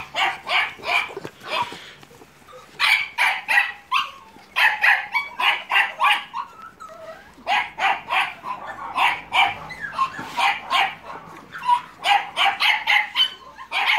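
Staffordshire terrier puppies yapping: quick runs of short, high barks with brief pauses between the runs.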